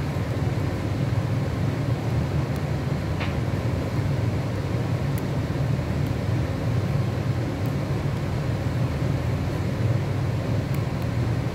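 Steady low-pitched background hum, with one faint click about three seconds in.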